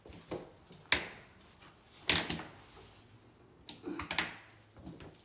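A few sharp knocks and clunks, like something hard being handled or set down: one about a second in, a louder one around two seconds, and a quick pair near four seconds.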